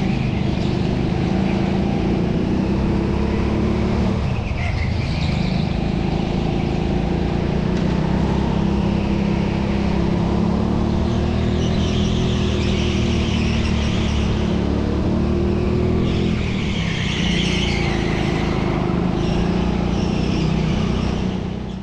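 Racing go-kart engine running steadily under throttle, heard onboard, its pitch rising and dipping a little through the laps, with stretches of higher hiss mixed in; the sound fades out at the very end.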